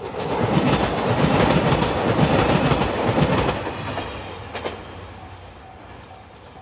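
JR Shikoku 2700 series diesel train passing close by: engine and wheels clattering over the rails, loud for the first four seconds or so, then fading as it moves away.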